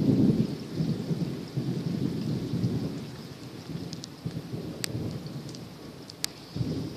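Distant thunder: a low rumble swells at the start and keeps rolling with uneven surges before easing off. Two sharp pops come near the end.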